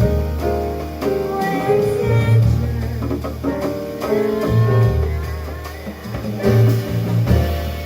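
Jazz band playing live: held melody notes over bass and drum kit.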